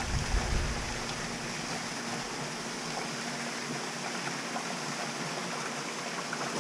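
Steady rushing, water-like hiss, with a low rumble in the first second that then dies away.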